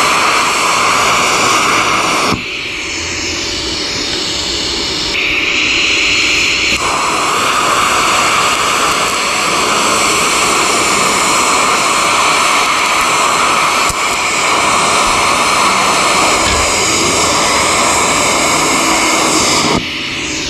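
Lift-start TIG arc from a YesWelder Flux 135 Pro burning on thin sheet steel: a loud, steady hiss. About two seconds in it drops in level for several seconds, then carries on until the arc is broken shortly before the end.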